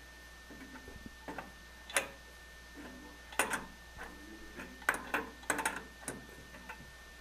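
Irregular metallic clicks and knocks of an adjustable wrench on the chrome supply-line nut under a bathroom sink as the supply line is loosened, a few sharp taps a second or so apart with a cluster near the end.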